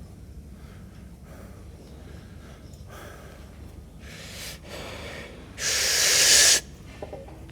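A man's heavy breathing: a few soft breaths, then two puffs of air and a long, loud, forceful exhale lasting about a second, near the end.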